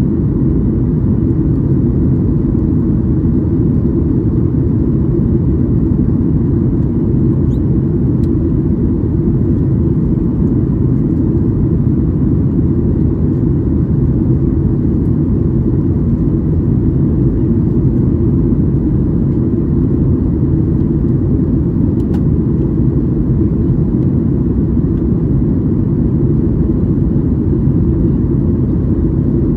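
Boeing 737-800 cabin noise in flight: a steady, low rumble of airflow and engine noise heard inside the cabin.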